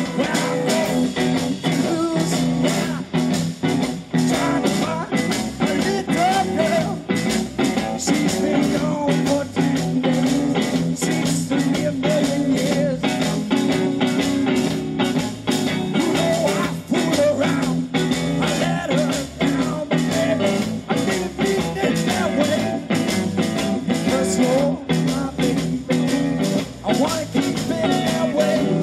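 Blues-rock band playing live: electric guitars over a steady drum beat.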